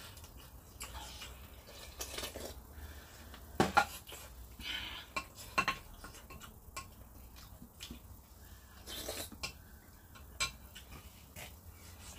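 Chopsticks tapping and clinking against plates and a frying pan during a meal, in scattered light clicks, the loudest about three and a half and five and a half seconds in.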